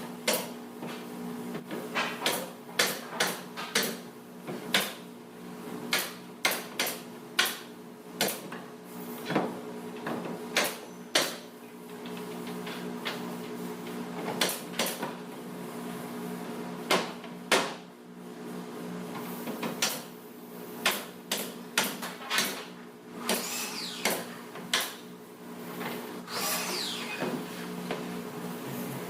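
Irregular sharp knocks and clacks from work on a wooden structure, coming in quick bunches with short gaps, over a steady low machine hum.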